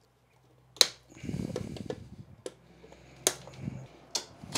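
Hand tools and cable being handled on a switchboard back plate: a sharp click about a second in, a low rustle, then three more single clicks.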